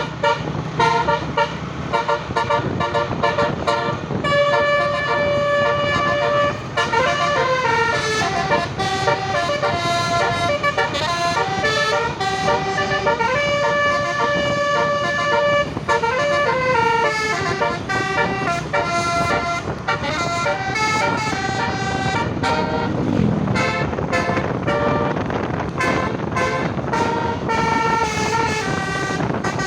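Indonesian bus 'telolet' Basuri multi-tone horn playing a tune, with the notes stepping up and down for the whole stretch, over the low rumble of the bus engine.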